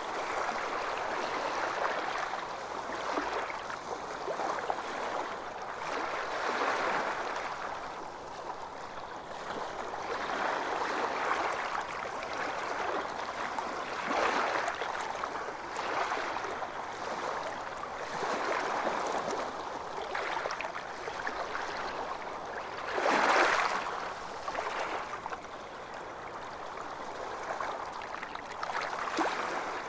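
Calm small waves lapping and sloshing, swelling and easing every couple of seconds, with one louder splash about three-quarters of the way through.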